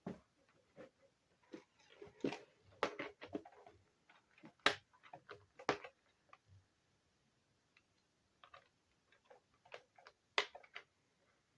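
Irregular light clicks and knocks of a laptop and small tools being handled on a work surface as disassembly begins. A few sharper taps stand out among them.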